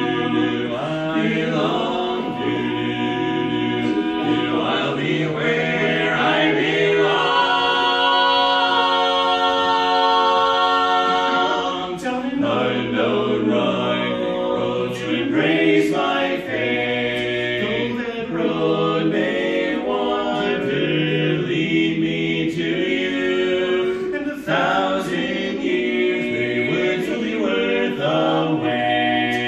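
Male barbershop quartet singing a cappella in close four-part harmony, with a long held chord about seven seconds in that breaks off about twelve seconds in.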